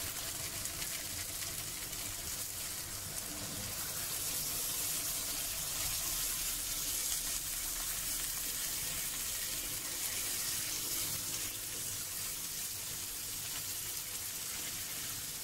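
Water poured from a measuring cup into a hot pan of prawn masala, splashing and sizzling steadily as it goes in: the cooking water for the biriyani rice being added.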